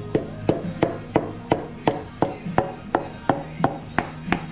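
Background music with a steady percussive beat, about three sharp ticks a second, over a held low tone.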